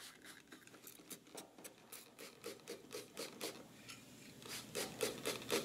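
Hands lubricating K-Line bronze valve guide liners with WD-40 on a paper towel: a rapid run of faint, short spritzing and rubbing sounds, about four a second, louder near the end.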